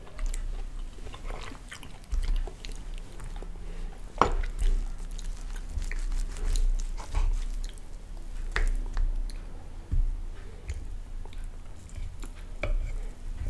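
Close-miked chewing of pancake, mixed with short clicks and scrapes of a knife and fork cutting a pancake on a wooden board, the sharpest stroke about four seconds in.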